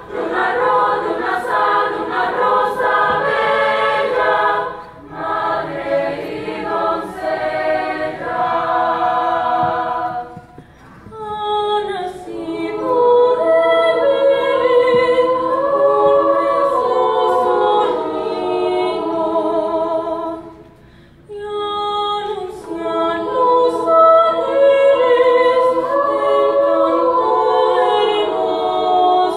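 Mixed choir of teenage voices singing, in long phrases broken by three brief pauses.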